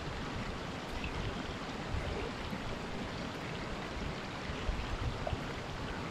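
Clear, shallow river water running over stones, a steady rushing.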